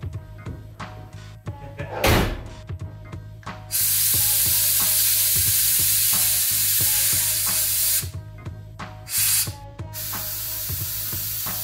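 Air-ride suspension letting air out of the bags through manual paddle valves: a short blip, then a loud steady hiss of about four seconds, a brief burst, and another steady hiss as the car settles lower. Faint music plays underneath.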